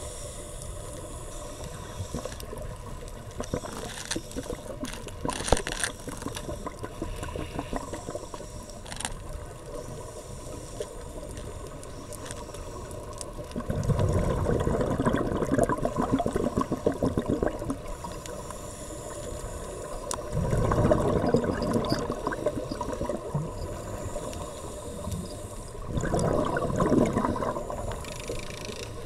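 Scuba regulator exhaust bubbles gurgling underwater, heard through a camera underwater: bursts of a few seconds with each exhaled breath, three of them in the second half, over a steady underwater hiss. A few sharp clicks early on.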